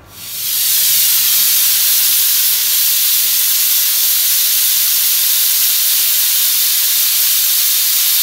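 Stainless steel pressure cooker whistling: steam hisses loudly and steadily out under its weighted valve, building up over the first second. This is the cooker's first whistle, the sign that it has come up to full pressure.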